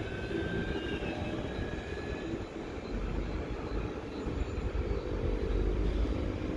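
CPTM Série 9500 electric multiple-unit train moving along the platform: a steady rumble of wheels on rail that grows louder from about three seconds in. A faint whine glides in pitch during the first two seconds.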